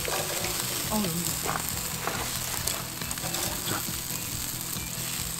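Pork meat sizzling steadily as it grills over charcoal.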